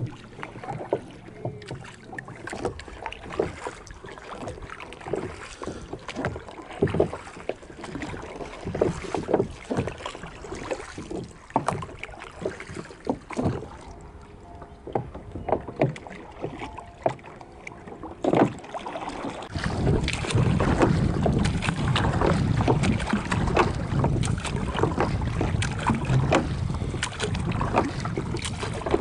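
Rowing boat under way: irregular knocks of the oars working in their rowlocks, with water splashing. From about two-thirds of the way through, wind buffets the microphone with a steady low rumble.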